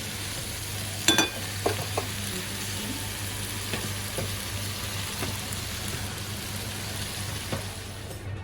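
Potatoes and tomatoes sizzling steadily in a frying pan as they are stirred, with a stirring utensil knocking against the pan a few times, loudest about a second in.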